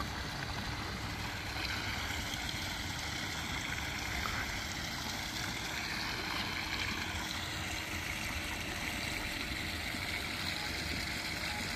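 Steady outdoor background noise: an even, low rush with no distinct events.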